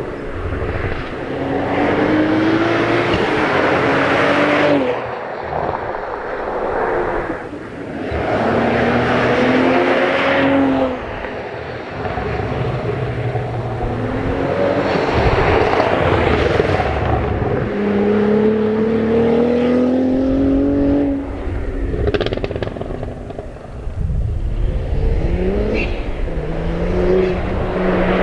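Cadillac CT4-V Blackwing's 3.6-litre twin-turbo V6 accelerating hard. The engine note climbs in pitch again and again, with brief drops between the runs.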